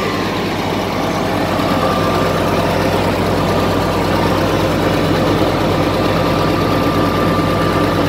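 Komatsu D85ESS bulldozer's diesel engine idling steadily.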